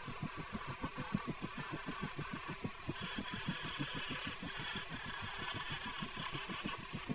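Vintage 1960s Rockwell Delta wood lathe running with a steady low pulse, about seven or eight beats a second. From about three seconds in until near the end a light hiss joins it as a thin tool touches the spinning wood.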